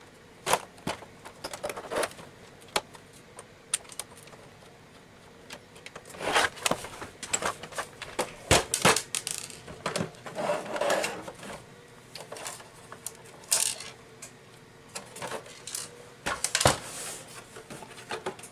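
Irregular clicks, taps and small metallic rattles of screws being backed out and set down as a Zebra ZD500 label printer's plastic cover is worked loose by hand, with busier clusters of handling noise near the middle and towards the end.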